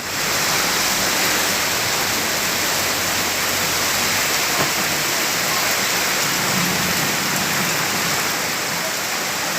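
Steady, even rush of water noise with no breaks, the sound of a flood's heavy water.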